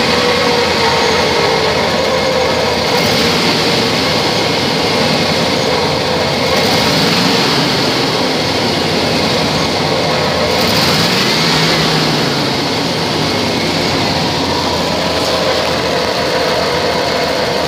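A 1996 Chevrolet Silverado's engine running steadily, heard close up with the hood open.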